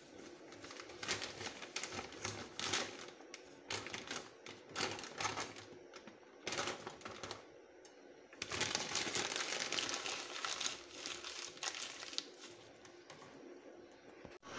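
Paper food wrapping rustling and crinkling as it is handled and pulled open, a run of irregular crackles with a denser stretch of crinkling a little past the middle.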